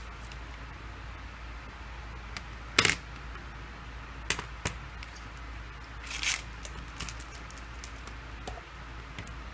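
Hands handling phone parts and plastic packaging: a sharp tap about three seconds in, a few lighter clicks, and a brief crinkle around six seconds in, over a steady low hum.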